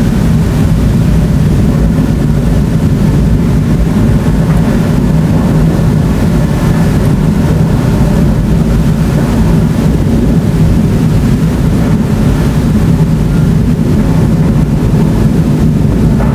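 Continuous thunder from a supercell thunderstorm with very frequent lightning: a loud, deep, unbroken rumble with no clear separate claps.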